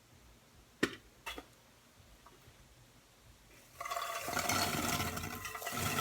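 Two late popcorn kernels popping in a hot pot about a second in. From about four seconds in comes a steady rushing rattle of popped popcorn being tipped out of the pot into a bowl.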